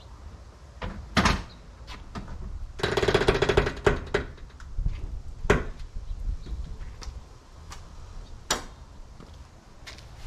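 Tilt cab of a Chevrolet Low Cab Forward 4500 box truck being tipped forward: sharp metal clunks from the latch and hinges, with a rapid rattle lasting about a second near the middle.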